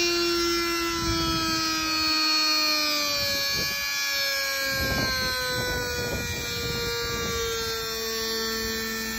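A small electric motor whining and slowly falling in pitch as it spins down, with a few light knocks along the way.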